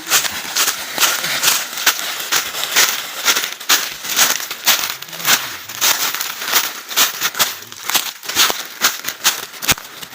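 Continuous dense crackling and crunching, many sharp irregular clicks a second at an even loudness.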